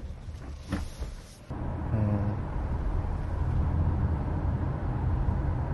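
Road and tyre noise inside the cabin of a moving Hyundai Tucson Hybrid, heard from the rear seat: a steady low rumble that gets suddenly louder about a second and a half in.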